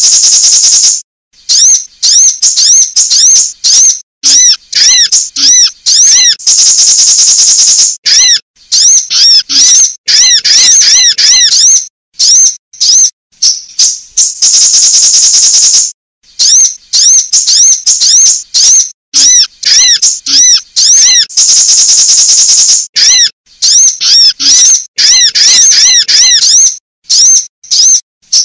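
Sunbird calls from a looped bird-lure recording: fast runs of sharp, high chirps alternating every few seconds with long, high buzzing trills.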